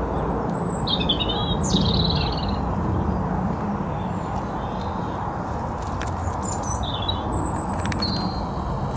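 Small birds chirping in short high calls, a cluster about a second in and another near the end, over a steady low background rumble with a few faint clicks.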